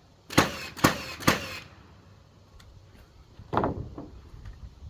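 Sharp knocks on framing lumber: three in quick succession in the first second and a half, each with a short ringing tail, then two more about three and a half seconds in.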